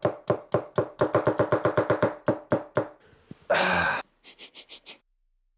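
A large gyuto chef's knife chopping quickly on a wooden cutting board, about six knocks a second for some three seconds. Then comes a half-second burst of noise and a few faint ticks.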